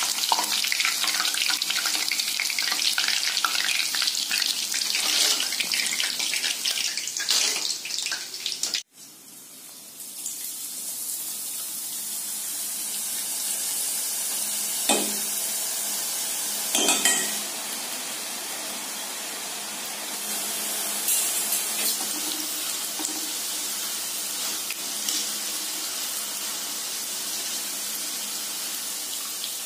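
Hot oil sizzling steadily as boondi batter drops deep-fry in an iron kadai, with a few sharp metal clinks of the ladle and strainer against the pan. The sizzle cuts out briefly about nine seconds in, then resumes as a fresh batch of batter hits the oil.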